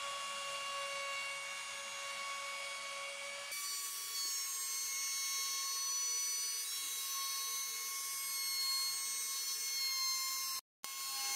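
Small CNC router spindle whining steadily as its ball-nose bit mills a groove into plywood. The whine steps slightly lower about three and a half seconds in and cuts out briefly near the end.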